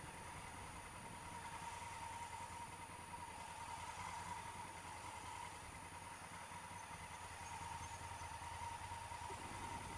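Honda Africa Twin CRF1000L's parallel-twin engine running at low revs as the bike creeps along in slow traffic, a low, muffled rumble. A steady thin high tone sits over it, and there is one short click about three-quarters of the way through.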